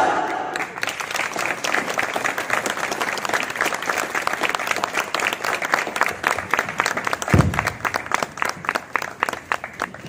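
Audience applauding as the dance music cuts off, the clapping thinning to scattered separate claps near the end, with a short low thud about seven seconds in.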